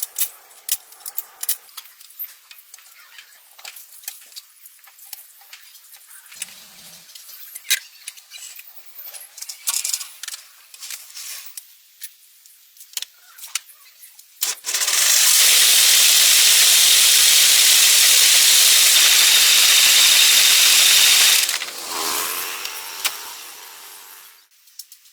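Metal tools clicking and clinking during truck axle repair work, then a loud, steady rushing hiss for about seven seconds that drops off sharply and fades away over the next few seconds.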